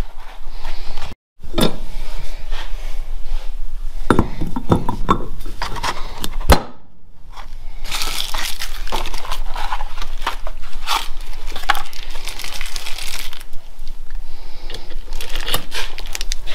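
Metal wheel-hub parts and bearings clinking and knocking on a wooden workbench, with one sharp click about six and a half seconds in. From about eight seconds in, packaging crinkles and rustles among the clinks as the new bearings are unpacked and set into the hub.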